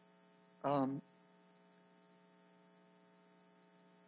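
A man's voice says one short word about a second in, then pauses. Under it a faint, steady electrical hum runs, a low buzz with a ladder of higher overtones.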